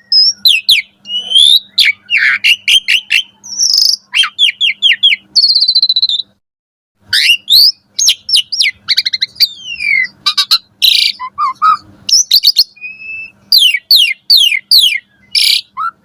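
Asian pied starling (jalak suren) in full song: a fast, varied run of whistles, chirps, sweeping notes and harsh scratchy calls, broken by a pause of about a second some six seconds in.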